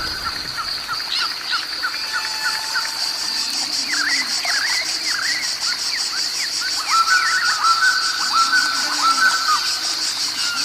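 Small birds chirping over and over in short, quick notes, over a steady high insect drone.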